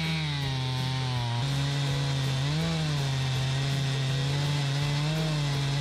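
Two-stroke Stihl MS 291 chainsaw, with a 20-inch bar and ordinary crosscut chain, running steadily under load in an Alaskan chainsaw mill as it rips a log lengthwise into a slab. Its engine note dips and recovers slightly as it works through the cut.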